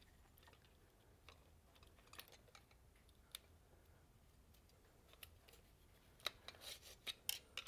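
Mostly near silence, with faint scattered clicks from handling a plastic Tecumseh recoil starter as its pull rope is threaded through the housing. About six seconds in comes a quick run of sharper clicks and scrapes of the rope and plastic parts being handled.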